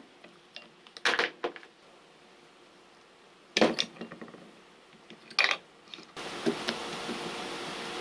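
Several separate sharp metal clinks and knocks from a steel gear puller and the drill's bearing assembly being handled on a wooden bench. About six seconds in, a steady hiss takes over.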